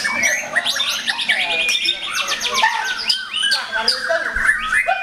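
Several white-rumped shamas (murai batu) singing loudly at once in competition: dense, overlapping whistles, rapid repeated-note trills and harsh notes.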